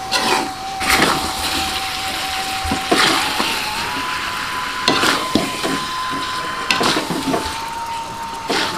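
Spatula scraping and turning chicken and pak choy in a hot wok, a stroke about every one to two seconds, over a steady sizzle.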